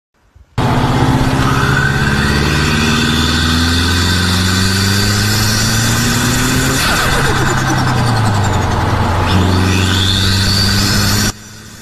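Turbocharged car engine accelerating hard, its note climbing in steps through several gears, with a rising turbo whistle and the fluttering chatter of turbo flutter as the throttle lifts. The sound cuts off suddenly near the end.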